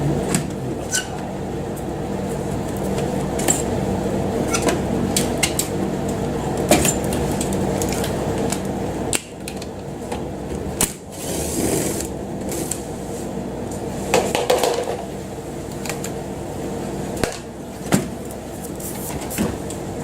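A machine running with a steady hum, with many scattered clicks and knocks from handling of hard parts and a brief hiss about eleven seconds in.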